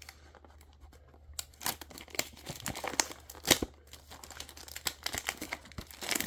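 A trading card pack's wrapper being torn open and crinkled: a dense run of sharp, irregular crackles begins about a second and a half in, with the loudest snap near the middle.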